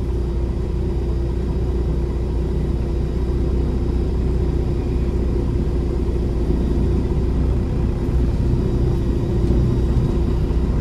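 Peterbilt 389 semi truck's diesel engine running under way: a steady low rumble with a constant hum above it.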